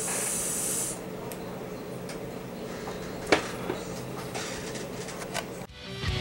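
A draw on a rebuildable dripping atomizer: a short airy hiss lasting about a second. Then a few light clicks and ticks, the sharpest about three seconds in, over a steady low hum, and rock music starts right at the end.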